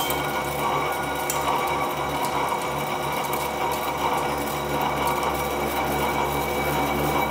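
Engine lathe turning a conveyor roller of welded AR-plate steel discs, the tool cutting with chatter: a steady ringing tone over a rough cutting noise, with a low pulse about twice a second.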